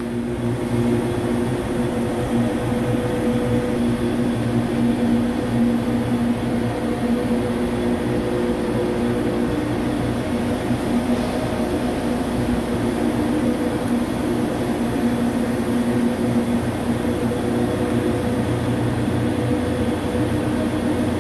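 Steady machine-shop background hum: machinery running with a constant low drone and a couple of held tones.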